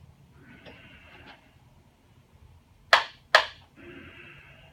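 Two sharp clicks about half a second apart, about three seconds in, over a quiet small room with faint soft rustling or breath-like hiss before and after.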